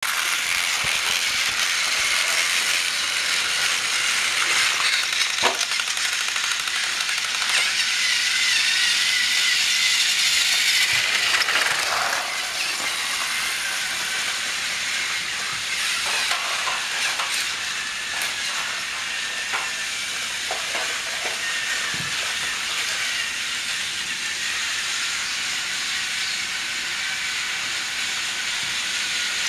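Battery-powered Trackmaster toy train engines whirring steadily as they run along plastic track, with a few light clicks and knocks.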